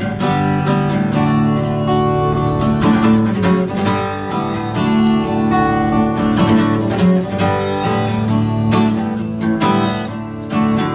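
Acoustic guitar strummed in steady chords that ring between strokes: the instrumental intro of a song, before the singing begins.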